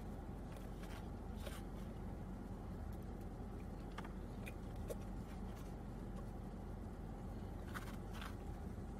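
Steady low rumble inside a parked car, with soft chewing and a few faint clicks and scrapes of a plastic fork against a foam takeout container.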